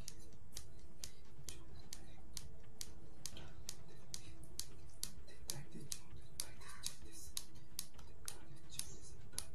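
Big-toe joints being cracked over and over: a quick series of sharp pops, about two a second, kept up at a steady pace.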